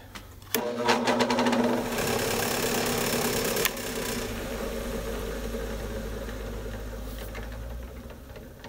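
Benchtop drill press motor starting up and spinning an empty expandable rubber sanding drum on a bolt arbor, running with a steady hum. A little over three and a half seconds in there is a click and the level drops, and the motor winds down slowly as the drum coasts.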